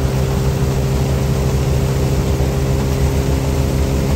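Belt-driven vintage threshing machine running steadily: a continuous mechanical hum with several steady tones over a low rumble.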